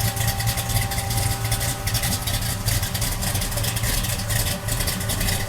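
Classic American muscle car's engine idling steadily, its exhaust giving a fast, even pulse.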